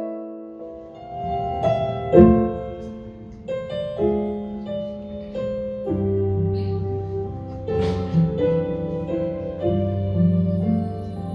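Slow piano music introducing a song, single notes and chords, with a low bass line coming in about six seconds in.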